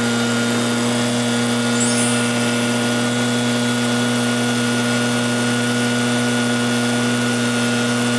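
Backpack two-stroke engine blower, a Zenoah EBZ8550, held at full throttle: a steady engine tone over the rush of air.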